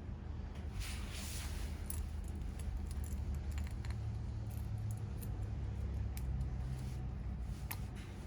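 Small metal parts and hand tools clinking and rattling as a motorcycle engine is taken apart, with scattered sharp clicks, a rattle about a second in, and a steady low hum underneath.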